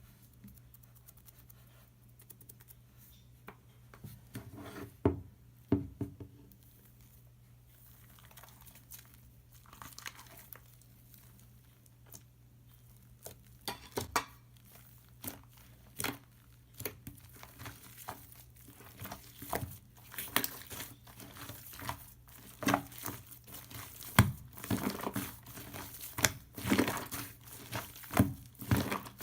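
Slime being squished, pressed and stretched by hand, giving irregular sticky crackles and pops. Faint at first, the pops come more and more often from about halfway through.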